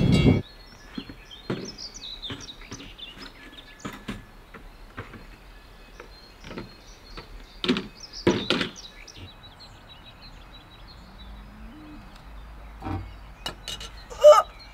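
Birds chirping over quiet outdoor ambience, with a few louder short sounds about eight seconds in.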